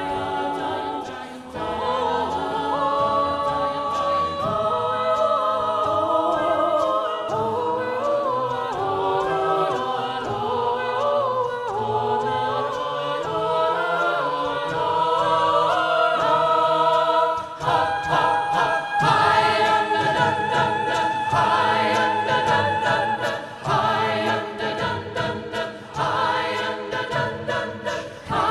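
Mixed-voice a cappella ensemble singing in divided SATB harmony, with the chords moving under a melody line. About two-thirds of the way in, a steady beat of sharp percussive clicks joins and the sound fills out.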